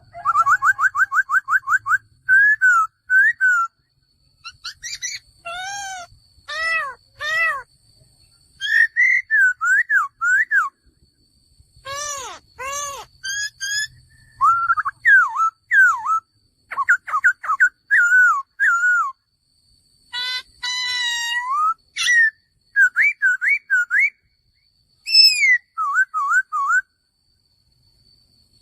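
Male laughingthrush singing: a long, varied run of loud, clear whistled phrases that slide up and down in pitch, repeated with short pauses between them.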